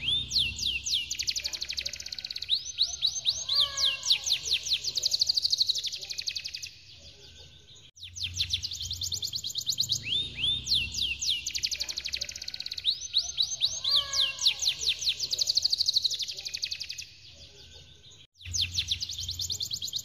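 Domestic canary singing long rolls of rapid, downward-sweeping high trills. The song breaks off briefly about seven seconds in and again near the end, and the same phrase comes round again about every ten seconds.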